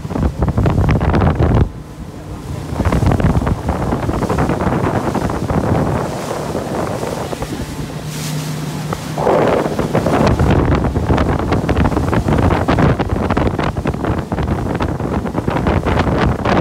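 Wind buffeting the microphone in uneven gusts aboard a moving rigid inflatable boat, over the rush of water along the hull and the low hum of the boat's motor.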